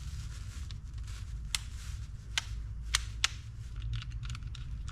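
Sharp small clicks and taps of fishing reel parts being handled and fitted back together by hand, four distinct clicks in the middle followed by lighter ticks, over a low steady hum.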